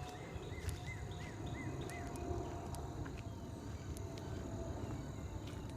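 A bird calls a quick series of about eight short arched notes over the first two seconds, above steady low rustling from footsteps on the trail.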